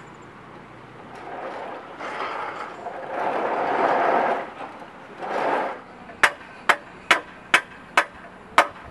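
A swell of rushing noise, loudest about four seconds in. Then six sharp hammer blows, about half a second apart, each with a bright ring.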